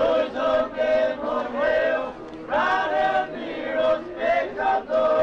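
A group of men singing a Festa do Divino devotional chant together, in long held notes phrase after phrase.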